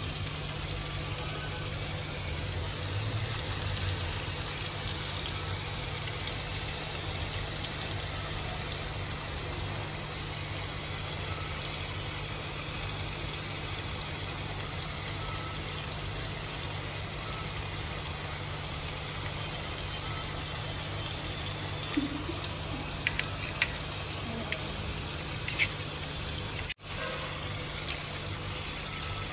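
Steady rushing noise with a low hum throughout, with a few sharp clicks of steel kitchenware near the end as a plate and knife are handled.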